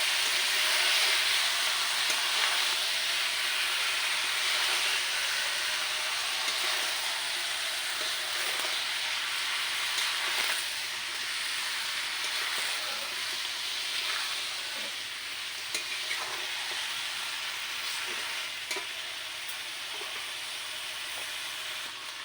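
Chicken pieces with spice paste, salt and turmeric sizzling in hot oil in a pan while being stirred, a steady frying hiss with light scraping that slowly gets quieter.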